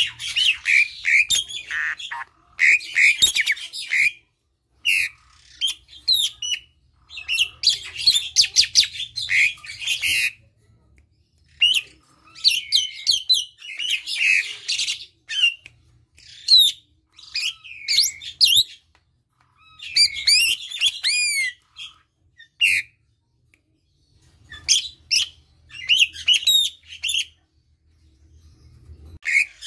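Asian pied starling singing at close range: bursts of mixed whistles and rapid chattering notes, some whistles gliding up and down in arcs, broken by short pauses of about a second.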